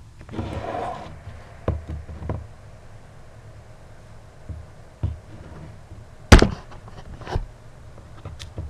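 Knocks and clatter of a bowl, spoon and seasoning shakers being handled and set down on a tabletop: a few light knocks, then one sharp, loud knock about six seconds in and a smaller one a second later.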